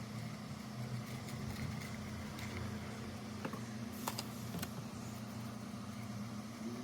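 Light clicks and taps from handling craft materials, the glue bottle and cardboard roll, with a small cluster of clicks about four seconds in, over a steady low hum.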